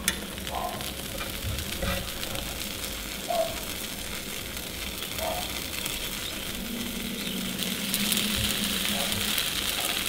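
Egg-and-sour-cream pancake batter frying in an oiled frying pan over below-medium heat, a steady sizzle that grows a little louder near the end, with a few faint light sounds as grated cheese is sprinkled over it by hand.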